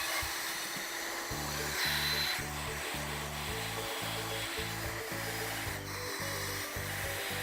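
Power drill running steadily as it scours rust off a cast iron skillet, giving a continuous abrasive hiss. Background music with a steady beat comes in about a second in.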